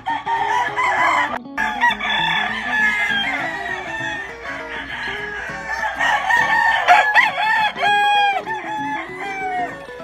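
Several gamefowl roosters crowing at once, their long crows overlapping one after another, with a little clucking, over quiet guitar background music.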